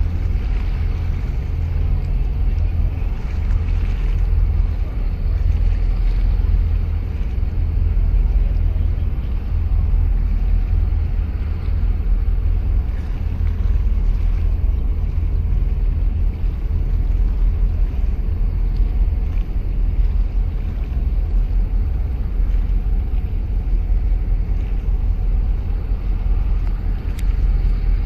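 Steady low rumble of a boat's engine, with wind and water noise on the microphone.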